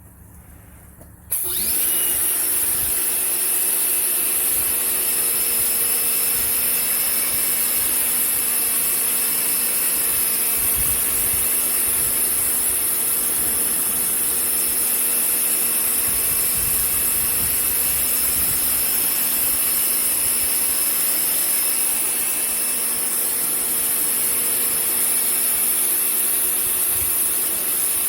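Pressure washer spraying, starting suddenly about a second in: a loud, steady high hiss of the water jet over the steady hum of the machine.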